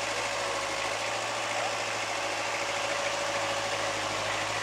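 Mini tractor engine running steadily as it pulls a trailer loaded with bricks at low speed, an even drone with no change in pitch.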